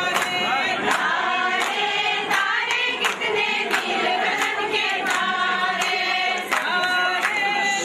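A group of women singing a Kashmiri wedding song together in chorus, kept in time by a steady beat of sharp strikes about three times a second.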